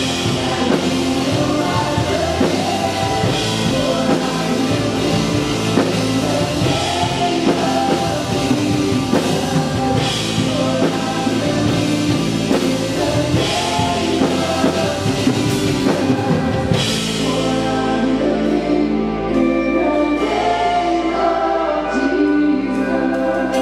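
Live contemporary worship music: voices singing over drums, electric guitars and keyboard. About seventeen seconds in, the drums and cymbals drop out, leaving softer sustained keys and singing.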